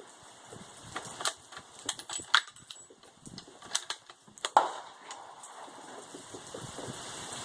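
A rifle being handled between shots: a string of sharp metallic clicks and clacks, the loudest about four and a half seconds in.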